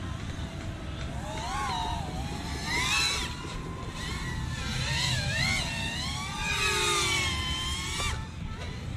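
FPV quadcopter's brushless motors and propellers whining, the pitch rising and falling over and over as the throttle is worked, over a steady low rumble.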